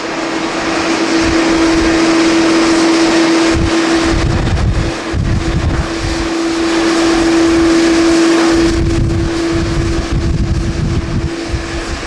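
Jet engine noise from a business jet climbing away after takeoff, with a steady droning tone underneath. Strong wind gusts buffet the microphone.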